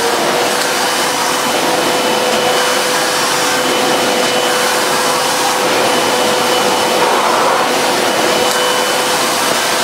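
Sebo Airbelt C3 cylinder vacuum cleaner running steadily with a constant whine, its floor head pushed back and forth over thick-pile carpet.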